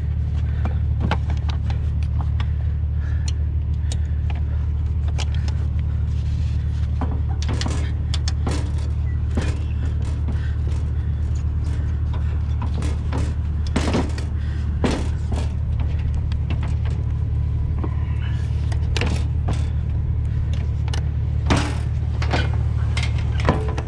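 Heavy diesel truck engine idling steadily, with scattered clicks, rattles and knocks of metal hardware as a tow light bar and straps are fitted to a bus's front bumper.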